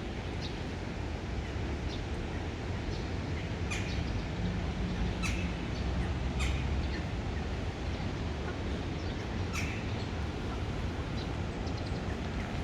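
Short, high bird calls scattered through, over a steady rushing background noise.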